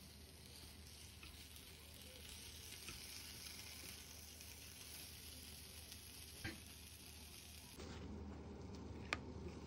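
Faint steady sizzling of a tamagoyaki rolled omelette frying in a rectangular omelette pan while chopsticks cut it, with a soft click or two. Near the end the sizzle stops and a low hum takes over.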